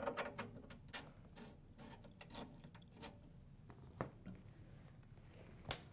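Faint, scattered clicks and light rattles of welding cables and a connector being handled, with a sharper click about four seconds in and another near the end.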